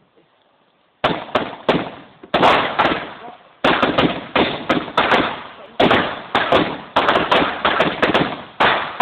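A ground-launched multi-shot firework cake firing shot after shot, starting about a second in. Each shot is a sharp bang that fades before the next, about two a second.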